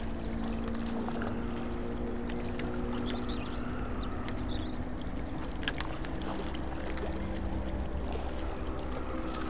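A steady low motor hum with several held tones runs throughout. Over it come faint ticks of a baitcasting reel being wound against a hooked fish, and one sharp click about five and a half seconds in.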